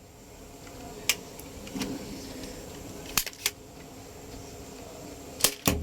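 Toy gun being fired at plastic action figures: a few sharp, separate plastic clicks and knocks, two of them close together near the end, the last with a dull thump.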